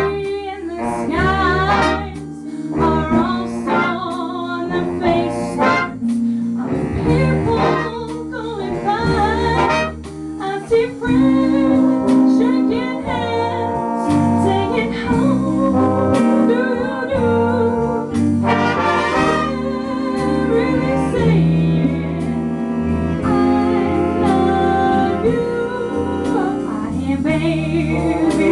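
Youth jazz orchestra playing a slow ballad live: a wavering solo melody over the band, then brass and saxophones holding sustained chords from about the middle on.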